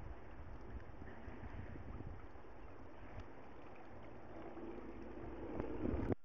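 Wind noise on the microphone: a steady low rumble that grows louder near the end, then cuts out for an instant.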